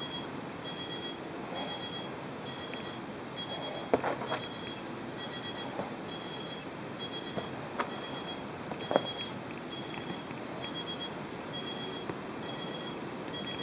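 Electronic beeping repeating evenly, a little more than once a second, each beep a quick run of high pulses, with a few light knocks or taps in the middle.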